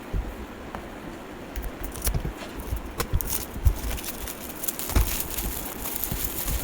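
Cardboard box and plastic packaging being handled and opened: scattered knocks and clicks, with crinkling that grows dense from about halfway through.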